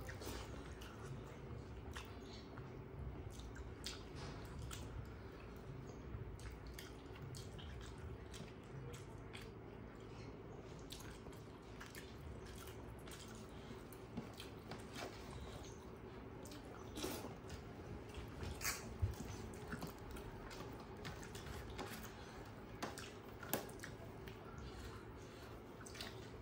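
Eating sounds up close: fingers squishing and mixing rice and curry on steel plates, with chewing and lip smacks. Scattered short wet clicks, a few louder ones in the second half, over a faint steady hum.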